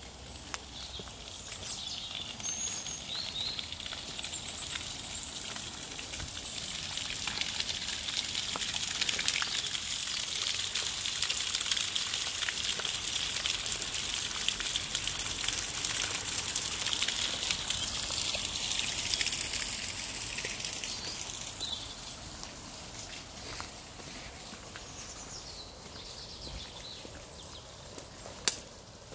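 Water splashing from a drain pipe outfall down a stone wall into a brick culvert channel, a steady hiss that swells as the outfall is approached, peaks while it is close, and fades after it is passed, leaving the quieter flow of the channel. A single sharp click near the end.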